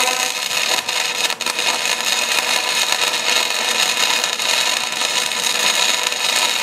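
Wire-feed welder running a bead on a steel crosspiece: the arc crackles steadily without a break.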